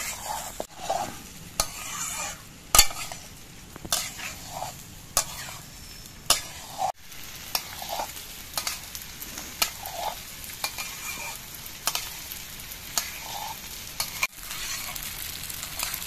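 A metal spatula scrapes and knocks against a metal kadai while parboiled rice and spices are stir-fried in oil, with a light sizzle under it. Irregular scraping strokes and clicks come about once a second, the loudest about three seconds in. This is the rice being sautéed with the spices before the dal goes in.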